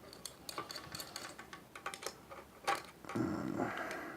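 Faint, irregular small clicks and taps of wire and hand tools being handled while a wire end is bent into a loop for a switch's screw terminal, with one sharper click nearly three seconds in.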